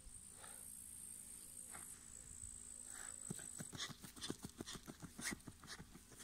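Dog digging in grassy soil: rapid scratching strokes of its paws in the earth, starting about halfway through. A steady high insect buzz runs underneath.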